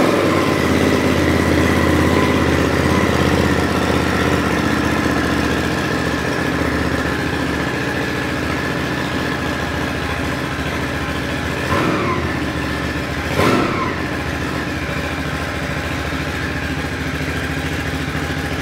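MITT 880 motorcycle's 800 cc water-cooled twin-cylinder engine idling just after starting, with a round, smooth-running note. The throttle is blipped twice, about twelve and thirteen and a half seconds in, each a quick rise and fall in revs.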